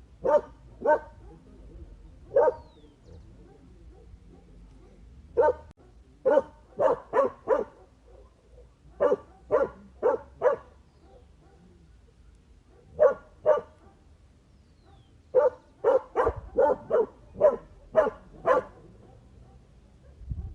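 A dog barking: about twenty short, sharp barks, some single and some in quick runs of two to six, with pauses of a second or more between groups.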